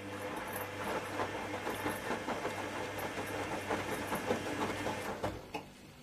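Zanussi ZWF 1621 W front-loading washing machine running a rinse: water swishing and splashing with the wet laundry over a steady low hum. It stops abruptly about five seconds in, followed by a single click.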